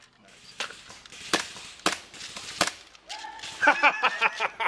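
Airsoft guns firing: four single sharp shots a second or so apart, then a quicker run of shots with a buzzing tone near the end.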